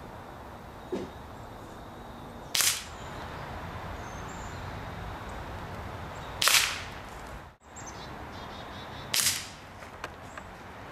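Three sharp cracks of a pellet-gun air rifle being fired at the target, spaced a few seconds apart.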